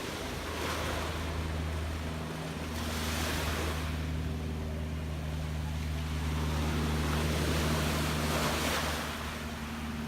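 Gentle sea waves washing in, the surf noise swelling about three times, over a steady low hum.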